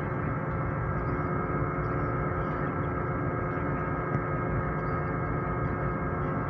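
Steady drone of the KM Kirana 1 ship's engines and machinery while it comes alongside the pier: a low rumble with several steady humming tones over it.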